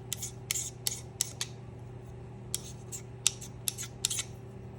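A small hand sharpening stone scraped in short strokes along the edge of a steel scissor blade, flipping the burr left by grinding: about a dozen quick scrapes in two runs, with a pause of about a second partway through, over a steady low hum.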